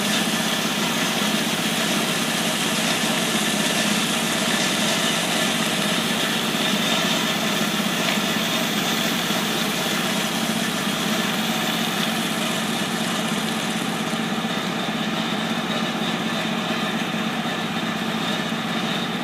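Hydroseeding machine's engine and slurry pump running steadily while spraying, with a high hiss over the hum that thins out about two-thirds of the way through.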